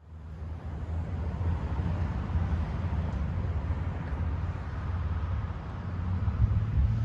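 Road traffic noise: a steady low rumble of passing cars that fades in over the first second.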